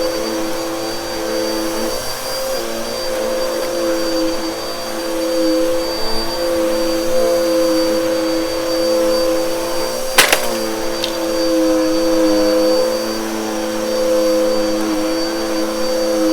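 Bissell vacuum cleaner running steadily over a shag rug, its motor hum wavering slightly in pitch as it is pushed, with one sharp click about ten seconds in.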